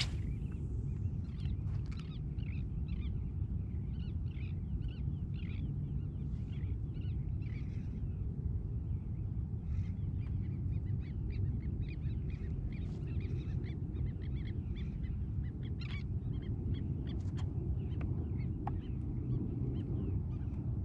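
Birds calling in many short, quick chirps, thickest in the first half, over a steady low rumble.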